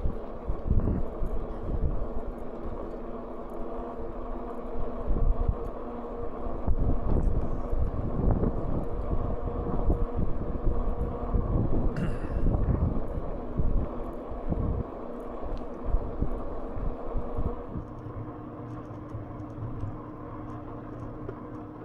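Riding noise from an e-bike under way: wind buffeting the microphone and tyre rumble, with a steady hum from the electric assist motor. A brief brighter sound comes about halfway through.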